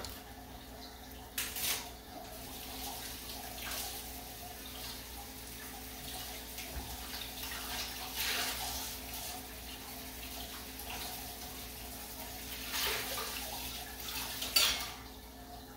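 Hot oil sizzling around glutinous-rice doughnut rings deep-frying in a wok, a steady hiss that swells into louder spattering several times.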